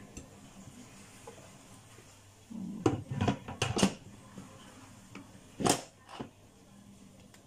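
Lid of an electric pressure cooker being set on and closed: a quick cluster of metal-and-plastic knocks and clicks about two and a half seconds in, then a single sharp click near six seconds.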